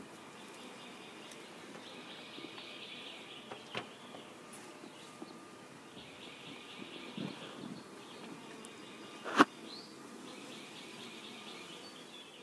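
Honeybees buzzing faintly around a hive, with a high trilling call in about three bursts of a second or two each. A sharp click about nine seconds in.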